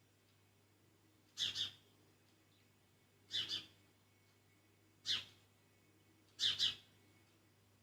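A bird calling: four short, high chirps about every second and a half to two seconds, most of them quick double notes.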